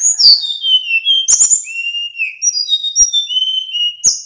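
Male sikatan bambu flycatcher singing a fast run of high, thin whistled notes, most sliding downward, mixed with a few sharp clicks. The song cuts off abruptly at the end.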